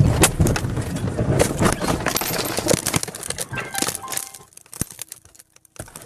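A sudden loud crash, then several seconds of clattering and rattling that die away into scattered clicks and knocks, as heard by a car's dashcam.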